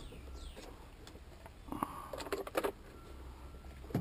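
Plastic vacuum-cleaner housing parts being handled and pressed together: a sharp click, then a short run of light knocks and clatters in the middle, and another click at the end.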